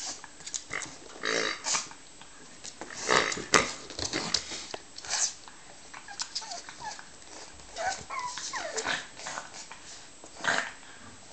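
Pug growling, grunting and snorting in a string of short irregular bursts while it noses and mouths a pink latex pig toy, with one sharp click about three and a half seconds in.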